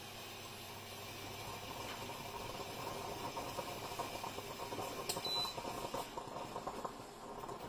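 Stovetop moka pot heating on an electric hob: a steady hiss with a fine crackling that grows louder, and a short single beep about five seconds in.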